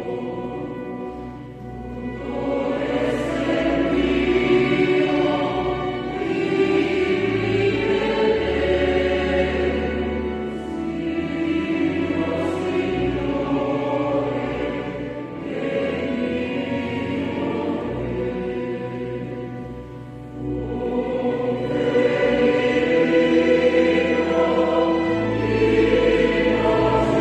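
Polyphonic choir singing a hymn in several parts, in sustained phrases with brief dips between them, in a church.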